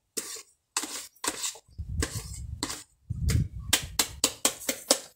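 A spoon scraping and knocking thick cake batter out of a mixing bowl into a baking pan: a string of short scrapes and taps, coming several a second in the second half, with a couple of dull low thuds.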